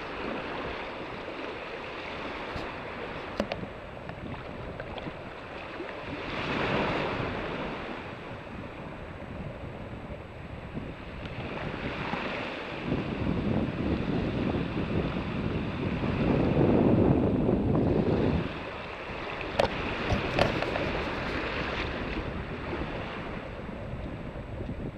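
Wind buffeting the microphone over gentle surf in shallow sea water, swelling in stronger gusts a few seconds in and again past the middle, the loudest just before the end of the second gust. A few brief sharp clicks sound through it.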